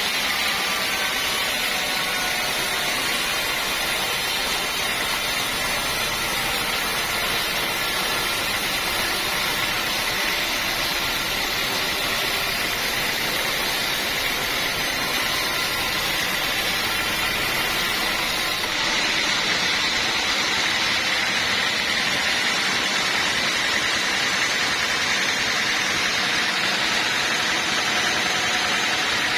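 Band sawmill running: a steady, even machine noise with a high tone running through it. The highest hiss drops away about two-thirds of the way through.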